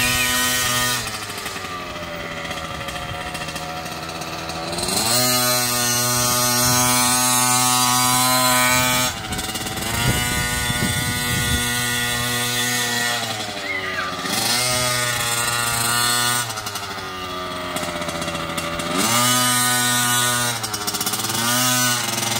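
Small youth dirt bike's engine being ridden, revving up to a steady high buzz, holding it for a few seconds, then dropping back, over and over, about four times.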